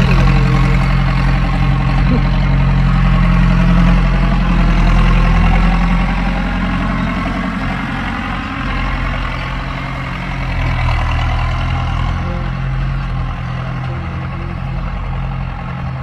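Diesel tractor engine running steadily while it pulls a karah, a tractor-drawn leveling scraper, spreading sand over a field. It gets a little quieter after about six seconds.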